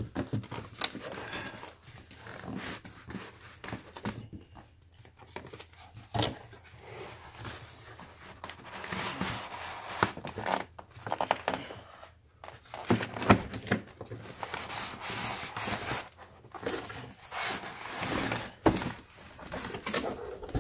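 Cardboard box and plastic-bagged packing in a foam insert being handled: intermittent rustling and crinkling with scattered knocks.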